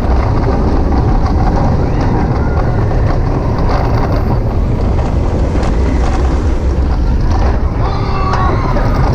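Onboard sound of an Intamin inverted roller coaster running at speed through its inversions: heavy wind buffeting the microphone over a steady low rumble of the train on the track.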